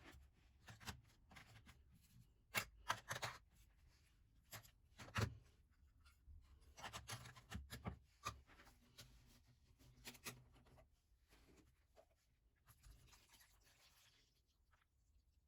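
Faint scratching and rubbing with scattered light clicks and taps, from hand work on small parts.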